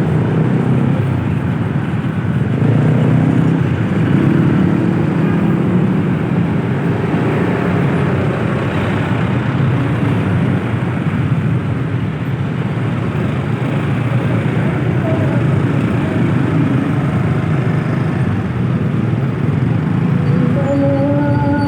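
Steady road-vehicle noise while travelling: a continuous engine-and-road rumble that stays level throughout. A few steady pitched tones join in near the end.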